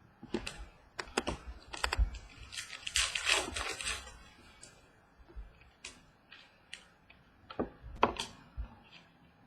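Trading cards and pack wrappers being handled on a table: a string of light clicks and taps, with a second or so of rustling about three seconds in.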